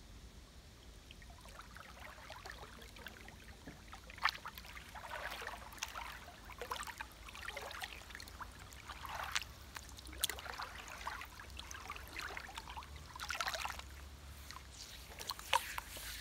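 Shallow creek water splashing and sloshing as a fully clothed person crawls, sits and kneels in it, in irregular bursts with a few sharper splashes.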